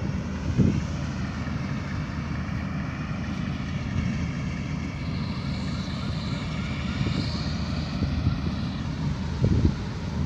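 Balkar 654 combine harvester's engine and threshing machinery running steadily while it harvests paddy, a low drone with a wavering whine over it. Wind gusts thump on the microphone a few times.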